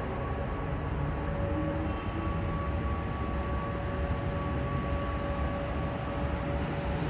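Distant air-raid siren holding one steady tone over a low rumble.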